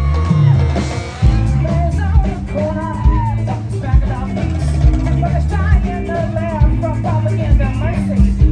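Live band music: drum kit keeping a steady beat over bass, with a wavering lead melody line above.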